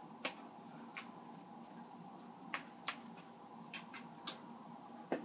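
Hands turning raw chicken wings in a bowl of egg and hot-sauce wash: faint, scattered wet clicks and squelches, about half a dozen in a few seconds.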